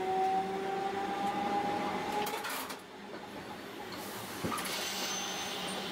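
Tosaden 600-series streetcar running on street track: the traction-motor whine rises slowly in pitch as the tram picks up speed, then cuts off a little under three seconds in as it coasts. After that comes a hissing rush of running noise with a brief thin high squeal about five seconds in.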